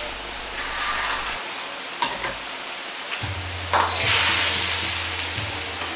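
Sauce sizzling and bubbling in a wok while snow peas go in and a metal ladle stirs, with sharp clicks of the ladle against the wok about two seconds in and just before four seconds; the sizzle swells louder after the second click, then eases off.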